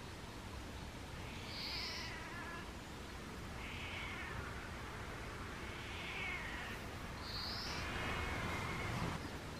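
An elderly calico cat screaming, with several loud drawn-out yowls each under a second long, spaced a second or two apart.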